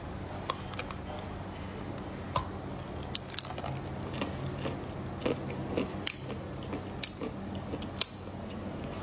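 Hard dark chocolate being bitten and chewed, giving irregular sharp crunches and crackles about once a second.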